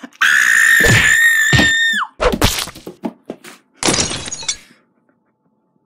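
A high-pitched scream held for about two seconds and dropping off at the end, with thumps of plush toys being bashed together. A short crash follows about four seconds in.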